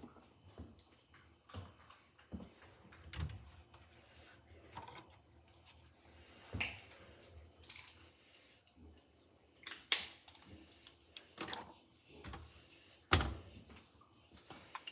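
Hands working a lump of homemade cornstarch slime, with soft rubbing and handling noises and a few sharp knocks of bowls or utensils, the two loudest in the second half.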